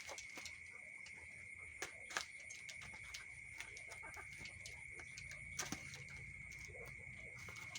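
Faint, scattered clicks and taps from handling a laptop and its packaging, over a steady high-pitched whine and a low hum.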